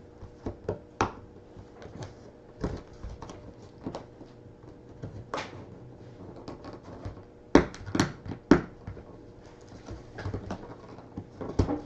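Scattered light clicks and taps of objects being handled on a table, with three sharper knocks about seven and a half to eight and a half seconds in.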